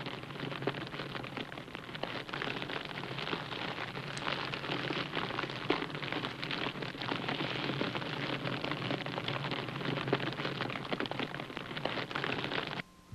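TIG welding arc on stainless steel, making tack welds: a steady crackling hiss that cuts off suddenly near the end.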